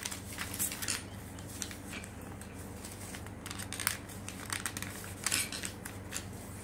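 Sheet of A4 paper rustling and crinkling as it is folded and a flap is tucked into a pocket: a string of short rustles, the loudest about five and a half seconds in, over a faint steady low hum.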